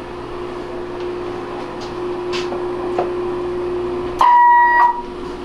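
Steady hum from vintage valve radio equipment, with a few sharp clicks of knobs or switches being worked, then one short, loud high beep about four seconds in.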